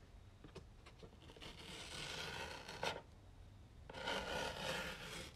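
Tear strip of a cardboard shipping box being pulled, ripping the box open along its seam in two long pulls of about a second and a half each, with a sharp snap at the end of the first.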